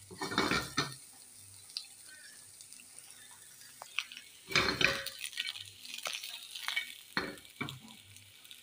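Onion rings being stirred and shaken in a nonstick frying pan to caramelize them: utensil and pan clattering and scraping in three short bouts, near the start, about halfway and near the end, with single clicks between.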